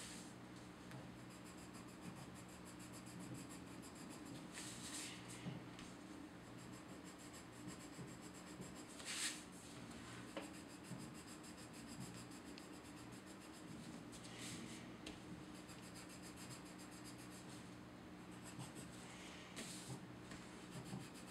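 Pencil crayon scratching on paper as it is coloured, faint and steady, with a few louder short scratches now and then.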